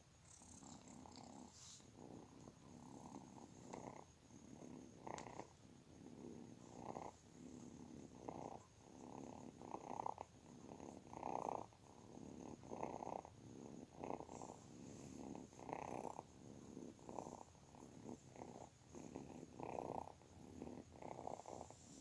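Kitten purring steadily and quietly, swelling and fading about every second and a half.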